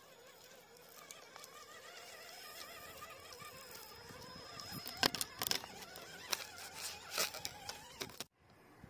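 RC scale rock crawler on a Carisma Coyote chassis crawling over loose dirt and stones: a faint wavering electric motor whine, then, over the last few seconds, a run of sharp clicks and knocks from the tyres and pebbles clattering over rock. The sound cuts off suddenly near the end.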